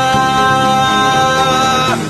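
A Hindi song with a singer holding one long steady note over the accompaniment. The note ends near the end.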